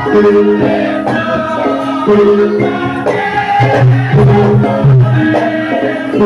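Loud traditional Javanese dance music: a repeating melody of held pitched notes with regular percussion strokes.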